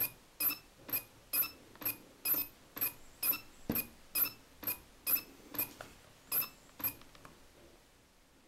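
Olympus Zuiko 12-60mm SWD lens's focus motor making short, sharp squeaking chirps, about two a second, which stop about seven seconds in. It is a faulty-focus noise that the owner puts down to the lens's supersonic wave drive motor.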